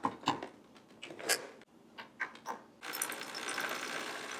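Bosch Tassimo pod coffee machine: several sharp clicks and knocks as its brewing-head lid is shut and latched, then about three seconds in the machine starts brewing with a steady running noise as coffee pours into the mug.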